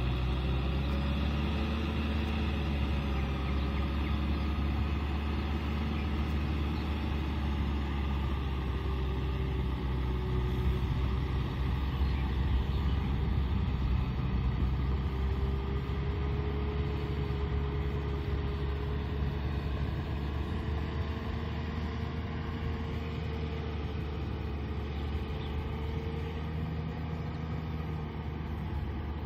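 Kubota M6040 SU tractor's four-cylinder diesel engine running steadily under load as it pulls a cultivator through wet paddy mud, fading slightly toward the end as the tractor moves away.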